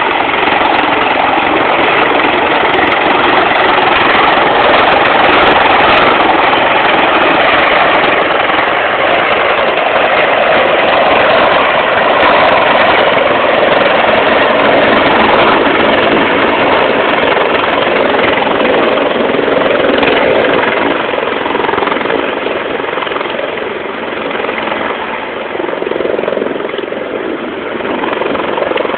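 Helicopter engine and rotor running loud and steady, the level easing a little in the last several seconds.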